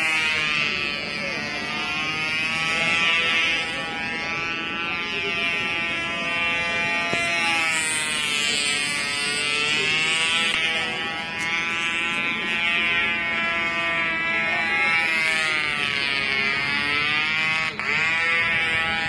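Control-line model airplane's small engine running flat out, a high buzz whose pitch rises and falls again and again as the plane circles the pilot through figure-of-eight manoeuvres. Near the end the pitch dips sharply for a moment.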